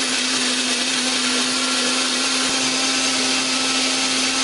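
Ravelle 2-in-1 retro chopper and blender running steadily, its blades whirring through shallots, garlic and spices with a little water in the glass jar to grind them into a paste, over a steady motor hum.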